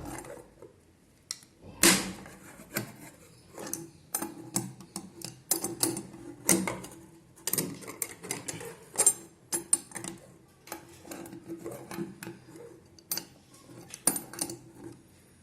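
Adjustable wrench clicking and clinking against the nut of a compression tube fitting as the nut is turned and tightened to set the ferrules on the tube: irregular sharp metal clicks, the loudest about two seconds in.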